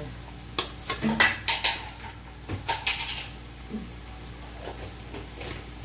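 A spoon and a small glass jar clinking and knocking as they are handled and set down: several sharp clinks in the first three seconds or so.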